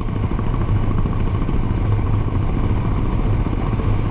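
Royal Enfield Bullet 500's single-cylinder engine running steadily at cruising speed, mixed with wind and road noise.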